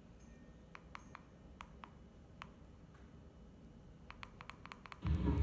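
A quiet room with a scattering of faint, sharp clicks. Near the end, loud voices from a television playing a vlog start suddenly.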